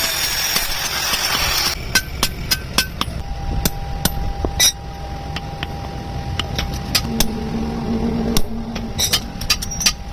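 Metal striking metal: irregular sharp clinks and taps, some ringing briefly, over a low steady rumble. A loud hiss cuts off just before two seconds in.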